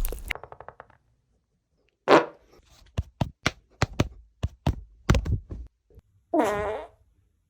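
Fart noises: a sputtering one at the start, a louder one about two seconds in, then a string of short sharp pops, and near the end a longer pitched, wavering sound.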